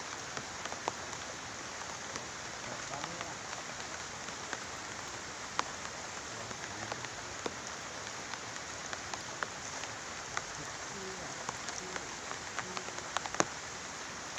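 Steady rain hissing, with scattered sharp taps of drops striking close by; one tap near the end is louder.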